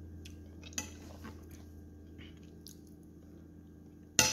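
Cutlery tapping and scraping against a dinner plate during a meal: a few light clicks, then a sharper, louder clink near the end, over a steady low hum.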